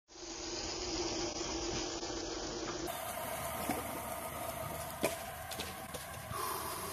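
Steady outdoor background noise with a low hum, which changes abruptly about three seconds in. Two short sharp clicks follow.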